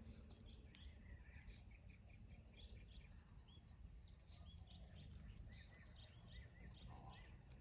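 Faint outdoor ambience: small birds chirping now and then with short, high notes, over a steady high hiss.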